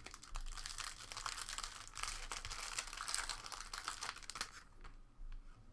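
Plastic trading-card pack wrapper crinkling and tearing as cards are handled, a dense crackle for about four seconds that fades near the end.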